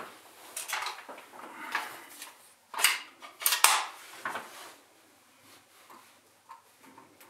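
Clattering knocks and clicks of workshop tools being handled on a bench, with the loudest few sharp knocks around the middle.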